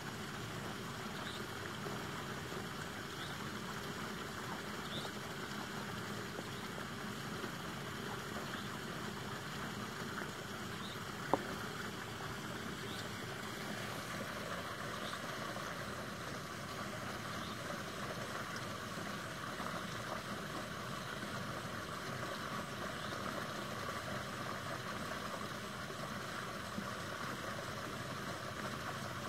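Steady outdoor background noise with a faint high chirp repeating about every two seconds, and one sharp click near the middle.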